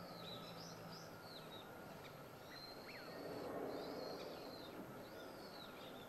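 Small birds calling with thin, high, arching chirps, repeated every second or so over a steady outdoor hiss. A low rushing sound swells and fades about three to four seconds in.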